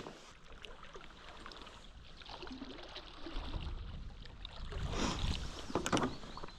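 Faint water sounds around a stand-up paddleboard on a river: water lapping and the paddle moving through it, with a couple of sharp knocks about five and six seconds in.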